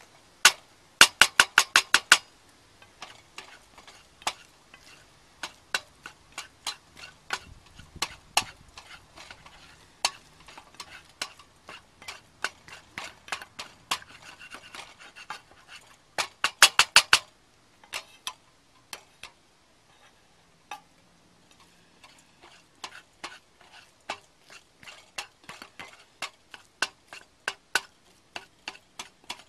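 A utensil stirring and scrambling eggs in a thick pan, clicking and scraping against the pan in irregular strokes. Two quick runs of rapid taps come about a second in and about sixteen seconds in.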